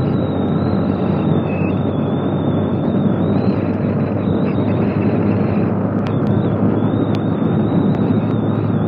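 Steady noise from a vehicle on the move, engine and road noise blended into a constant rush with a low hum underneath.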